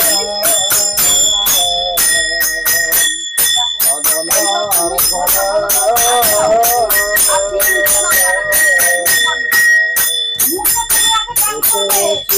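Music: a voice singing a melody over a fast, steady beat of ringing metallic strikes, about four a second.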